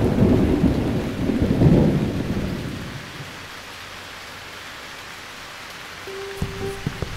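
Thunderstorm soundscape: low rolling thunder over rain, dying away about three seconds in to a steady rain hiss. Near the end a plucked-string tune begins.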